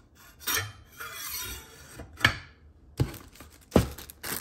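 A kitchen knife blade scraping as it is slid into a slot of a wooden self-sharpening knife block, with a sharp knock a little past halfway and a duller thump near the end.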